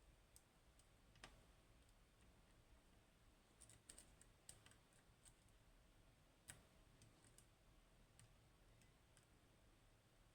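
Near silence with faint, scattered clicks of a lock pick working the pins of a Goal Z pin tumbler lock under tension: a quick cluster of clicks about four seconds in and a single sharper click a little later.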